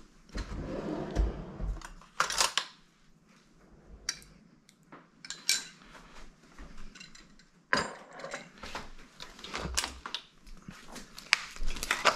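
A metal spoon clinking against a ceramic soup bowl, among scattered clatter and handling knocks, with a kitchen drawer sliding near the start.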